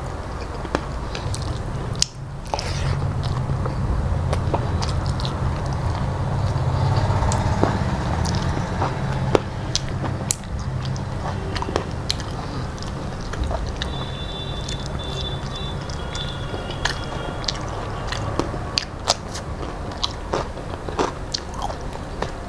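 Close-miked chewing of a mouthful of rice and vegetables, with many small wet mouth clicks and smacks, over a steady low hum.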